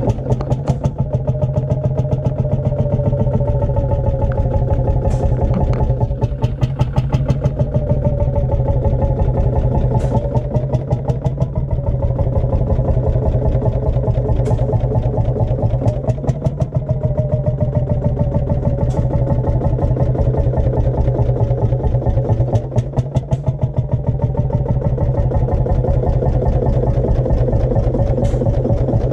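Old tractor engine idling with a rapid, even exhaust beat, with a few sharper knocks standing out.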